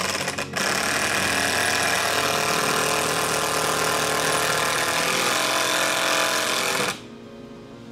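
Power drill driving into the wooden frame: a brief rattling burst, then the drill running steadily for about six seconds before stopping suddenly near the end.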